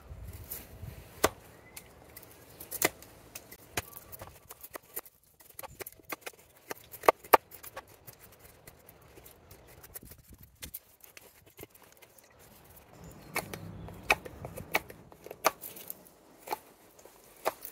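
Carving knife slicing shavings off a Christmas-tree branch braced on a chopping block. The strokes come as irregular sharp cuts, some in quick pairs, with a quieter stretch in the middle.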